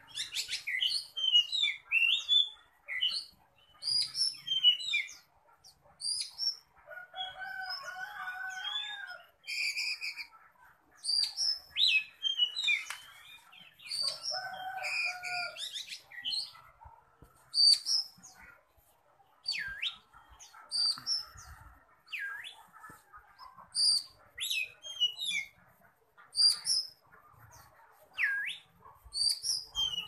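Oriental magpie-robin (kacer) in full song: a fierce, fast run of varied whistles, chirps, trills and sweeping notes with short pauses between phrases, the loud aggressive singing of a bird in competition form.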